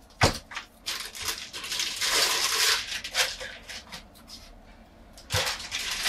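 Handling noises of a router being unpacked. A sharp click comes first, then a couple of seconds of rustling and crinkling packaging, then a few more clicks and knocks.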